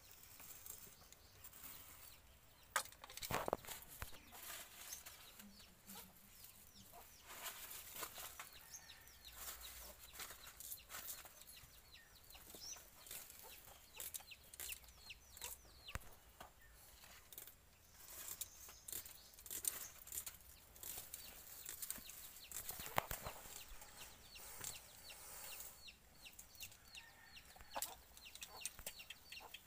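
Chickens clucking in the background over the crackle of a thin plastic bag of eggs being handled and small clicks of a knife trimming onion, with a couple of louder knocks.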